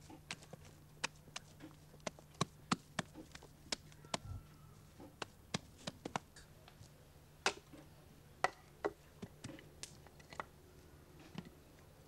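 Irregular series of sharp taps and knocks from close hand work, about two a second.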